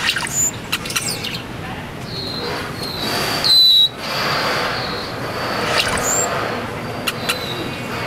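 High, thin bird whistles, the loudest a slightly falling note about three and a half seconds in, over a steady background hum of people talking. A few sharp clicks come near the start and again near the end.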